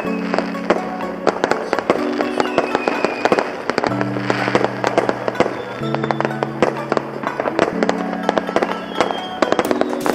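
Fireworks going off in rapid, dense pops and bangs, with a brief whistle about two seconds in, over background music with held chords.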